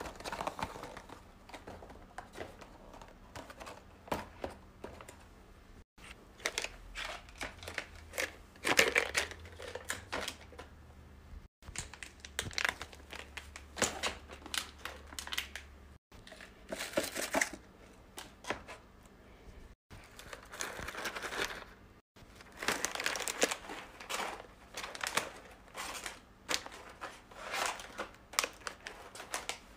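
Plastic snack wrappers crinkling, with boxes and cans tapping as they are set onto a plastic rolling cart's shelf: an irregular run of crackles and light knocks, broken by a few brief drop-outs.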